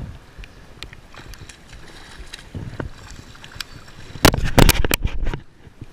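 Steady wind and water noise while a bluefish is being reeled in. About four seconds in, a burst of loud knocks and scrapes lasts about a second, with the sleeve right at the microphone.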